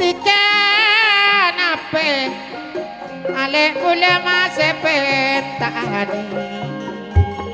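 Live traditional East Javanese kuda kencak accompaniment music: a loud, wavering, reedy melody line over steady lower instruments and drums, with a deep low stroke near the end.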